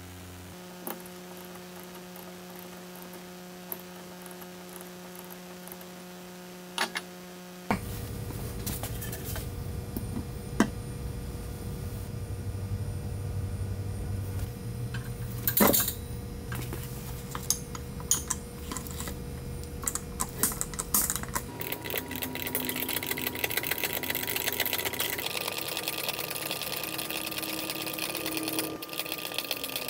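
Steady hum with a few light knocks, then, about eight seconds in, an antique Ford Model TT ratchet screw jack being worked with its handle: dense, rapid clicking of its ratchet mechanism as it raises a load.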